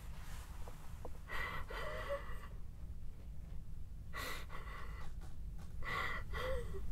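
A young woman sobbing with gasping breaths, in three short bouts: about a second in, at four seconds and near the end, over a steady low hum.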